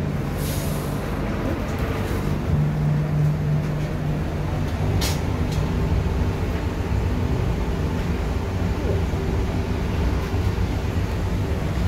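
Interior running noise of a Bombardier Innovia C801 rubber-tyred light rail car: a steady rumble of tyres on the guideway with a humming traction motor, and a sharp click about five seconds in.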